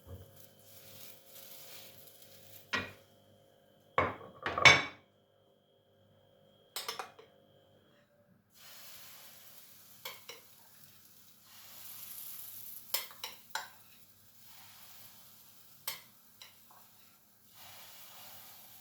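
Kitchen utensils clinking and scraping against dishes and a pan, several sharp knocks in the first half, then a faint steady sizzle of food frying with more clinks.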